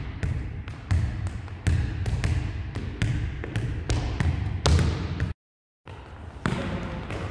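A football being kicked up and bounced on a wooden gym floor: a string of thuds about every half second, each echoing in the hall. The sound cuts out for a moment about five and a half seconds in, then the ball taps resume.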